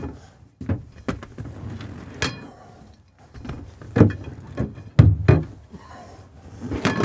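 Aluminum bed-support rails of a convertible dinette being popped out of their slots and handled: a series of sharp knocks and clatters, the loudest about four and five seconds in.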